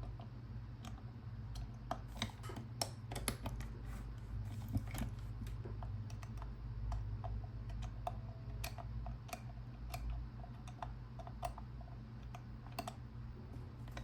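Irregular small clicks of the number wheels on a Master Lock combination key box being turned by hand, while a hook pick holds tension on the internal rod to feel for the right digit on each wheel. A steady low hum runs underneath.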